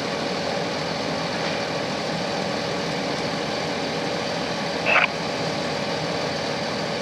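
A steady engine drone with a faint constant hum, holding level throughout. A brief high chirp about five seconds in.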